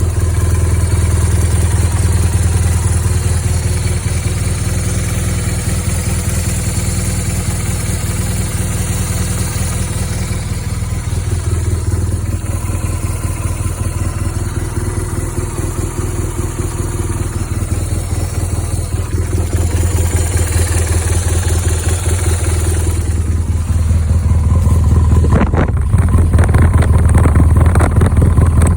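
Air/oil-cooled flat-twin boxer engine of a 2010 BMW R1200GS Adventure idling steadily, growing louder near the end.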